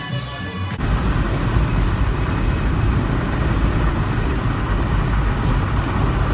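Wind and road noise inside a moving car with a window open: a steady rushing with heavy low buffeting that cuts in abruptly about a second in, after a moment of music.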